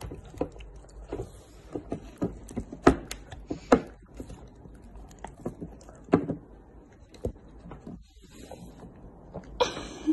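Doberman chewing raw meat, with irregular wet smacks and teeth clicks, then licking the plate in a longer wet burst near the end.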